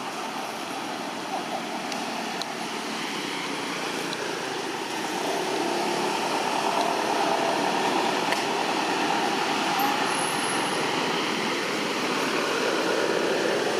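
Steady outdoor background noise, a hum-like wash with no distinct events, growing a little louder about five seconds in.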